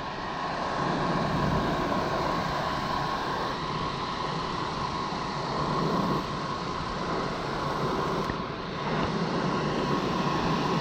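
Rooftop HVAC unit with a belt-driven blower running steadily, a constant hum with a steady mid-pitched tone, now without the rumble of a loose blower belt. The sound dips briefly about eight seconds in.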